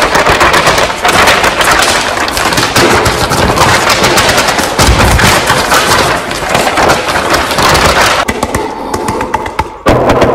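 A sheet of paper crinkled and rustled right up against the microphone, giving a loud, dense crackling. It thins out about eight seconds in, and a few sharper clicks follow near the end.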